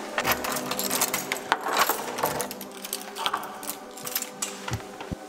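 Keys jangling with quick metallic clicks at a door lock as an apartment door is unlocked, the rattling thickest in the first couple of seconds and thinning out after.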